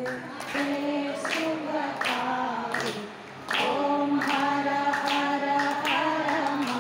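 A group of women singing a Hindu aarti in unison without instruments, with hand claps keeping a steady beat about once a second.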